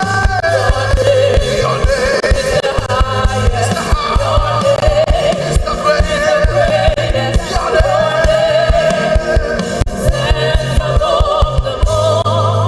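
Live gospel praise music: voices singing together over a steady drum beat and bass. Near the end the drums drop out, leaving a held bass note under the singing.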